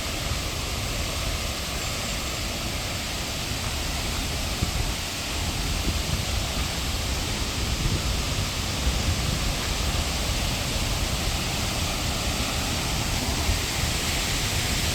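Waterfall rushing: a steady, even noise of falling water, a little louder over the second half.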